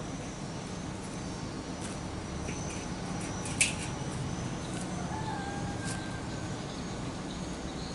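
A single sharp metallic clank about halfway through as a large metal wok is set down on a wood-fire stove, over steady outdoor background noise. A faint short bird call follows a second or so later.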